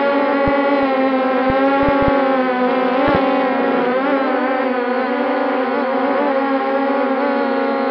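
The brushless motors and propellers of an MJX Bugs 6 racing quadcopter whine in flight, heard through the RunCam 2 mounted on the drone. It is a steady buzz whose pitch wavers up and down with the throttle, with a few brief low bumps in the first three seconds.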